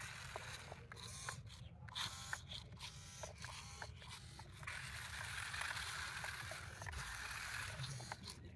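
Toy RC rock crawler's small electric motors and plastic gears whirring while it is held off the ground, with scattered plastic clicks and rapid ticking in the first half and a steadier whir through the second half.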